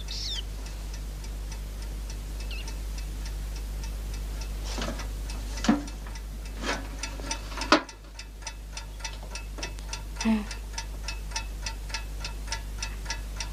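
A mechanical clock ticking steadily, about three to four ticks a second, with a few knocks and clunks of things being moved about. The loudest knocks come about six and eight seconds in.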